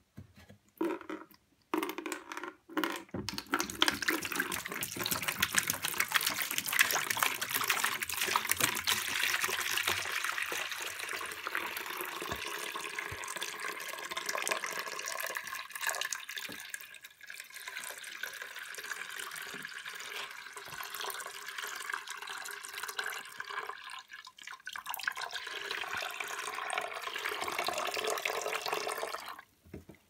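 Water pouring out of a tumble dryer's condensation tank through its spout into a plastic bucket: a few short splashes, then a steady stream that weakens briefly twice and cuts off near the end.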